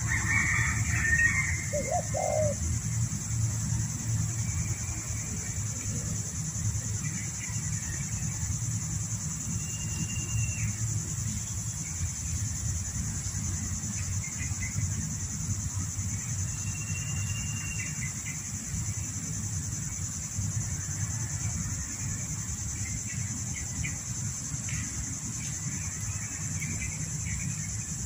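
Spotted dove cooing briefly about two seconds in. Short high chirps and whistles from other small birds come at intervals over a steady high insect drone and a low rumble.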